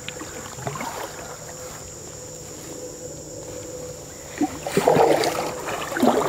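Canoe paddle strokes in the water. The first four seconds are quiet as the canoe glides, then a splashing, swishing stroke comes a little before five seconds in, with another just after six.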